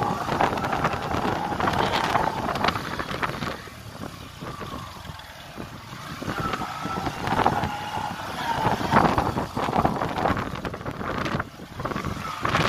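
Wind buffeting the phone's microphone, rising and falling in gusts and easing off for a couple of seconds midway.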